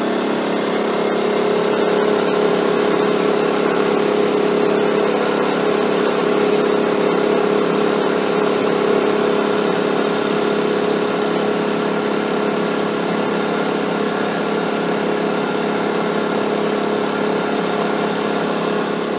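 Small gasoline portable generator engine running at a steady, unchanging speed under an electrical load of about 900 watts.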